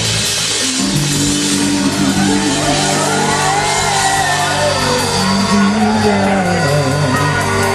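Live rock band playing, with held bass notes and sliding guitar or vocal lines over it, and some shouting.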